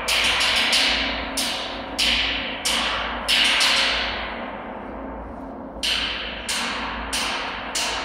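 Orchestral music: a sharp, ringing percussion strike about every two-thirds of a second, stopping for a couple of seconds midway before resuming.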